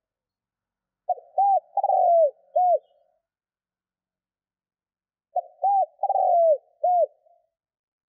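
Spotted dove cooing: two identical phrases about four seconds apart. Each phrase is a short opening note, an arched coo, a longer rolling coo that falls in pitch, and a final arched coo.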